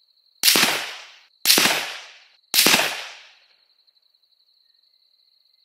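Ruger American Ranch 5.56 NATO bolt-action rifle fired three times, about a second apart, each loud shot trailing off in a short echo.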